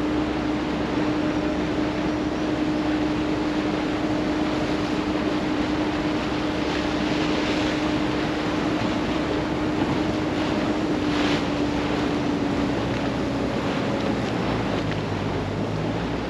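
Wooden motorboat under way, its inboard engine running at a steady cruising drone over the rush of water along the hull and wind on the microphone. The engine note eases slightly lower about two-thirds through.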